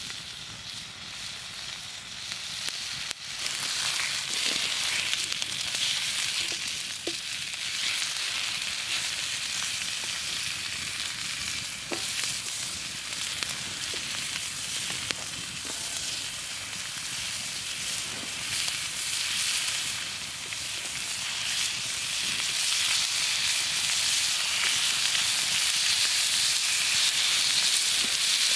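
Bacon strips sizzling in a frying pan over an open wood fire, with a steady hiss and small pops. The sizzle grows louder near the end.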